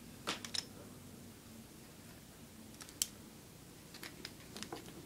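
A few light, sharp clicks and faint ticks from hair-styling tools being handled while a section of mannequin hair is taken and curled.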